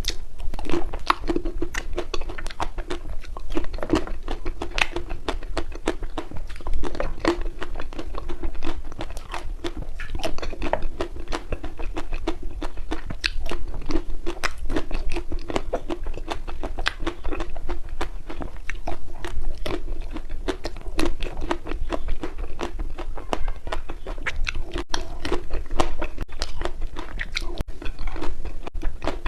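Ice cream being bitten and chewed close to the mouth, a dense, irregular run of sharp crunching clicks with a steady low hum underneath.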